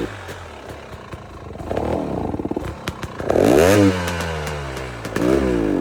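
KTM 300 XC-W TPI two-stroke engine revved three times, each rev rising and falling back to a low, uneven idle. It is running on a cheap aftermarket crankcase pressure sensor and sounds like crap, bogging.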